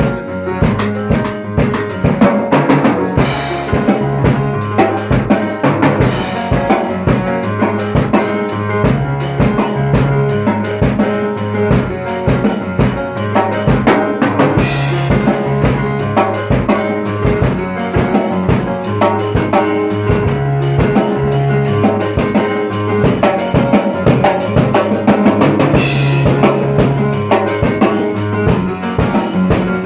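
Music driven by a drum kit, with bass drum and snare keeping a steady beat over sustained bass notes.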